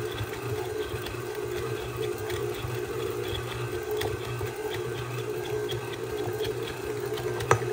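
KitchenAid tilt-head stand mixer running steadily, its flat beater churning a thick cake batter of box mix, butter and cream cheese in the steel bowl. A sharp knock comes near the end.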